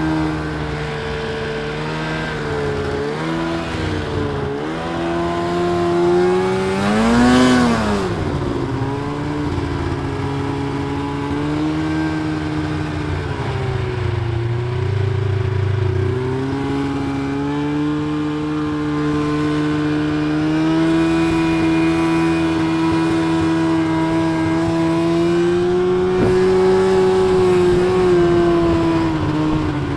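Snowmobile engine running loud while under way. Its pitch rises and falls in a quick rev about seven seconds in, then holds fairly steady and slowly climbs later on.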